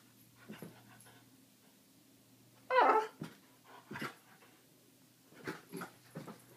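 French bulldog making short noises while jumping at flies: one louder, pitched cry about three seconds in, with several shorter, fainter sounds before and after it.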